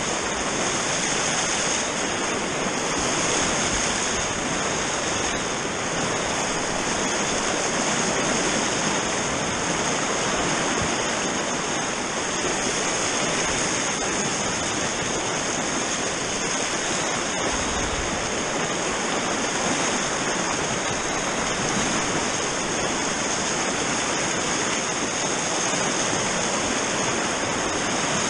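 River rapids rushing steadily, whitewater churning and breaking around the bow of a kayak held in the wave.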